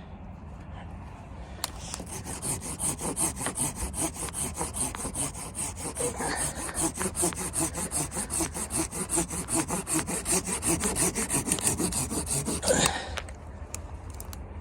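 Hand saw cutting through wood in quick, even back-and-forth strokes, about three a second, starting about two seconds in and stopping abruptly near the end.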